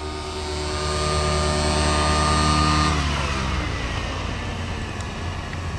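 Nitro RC helicopter with an OS 55 glow engine and tuned pipe, engine and rotor running at a steady high pitch as it comes in to land. About three seconds in the pitch falls away as it winds down, still set very rich.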